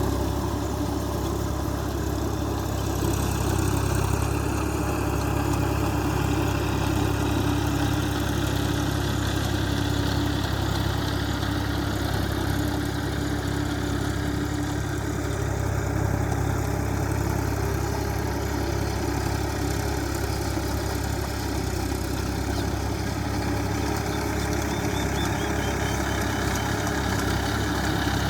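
Tractor engine running steadily while plowing a field, a low, even engine drone.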